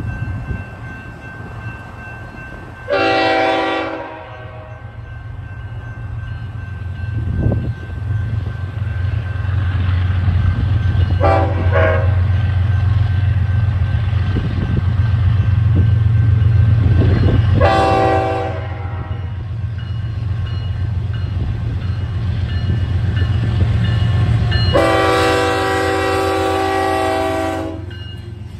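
Diesel freight locomotives approaching, their engine rumble growing louder as they near, while the lead unit, BNSF 6998, sounds its multi-note air horn four times: a long blast, a short one, another long one, then a final blast held about three seconds. The horn is warning for a grade crossing.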